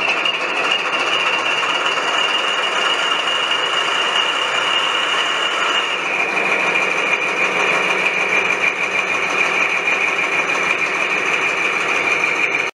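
Added sound of a Class 43 HST power car's diesel engine running, with a steady high-pitched whine over the engine noise. The whine shifts slightly about six seconds in.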